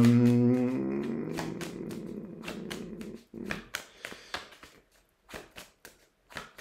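A person's voice holding a long, low hum that sinks in pitch and trails off about three seconds in, over soft clicks and taps of tarot cards being handled and laid on a cloth-covered table. Only the card clicks remain after that.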